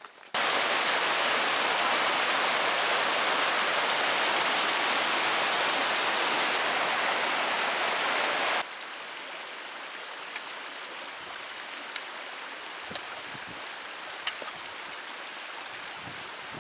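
Mountain creek rushing over rocks in white-water rapids, a loud steady rush of water. About eight and a half seconds in it drops abruptly to a quieter, steady rush of the stream, with a few faint clicks.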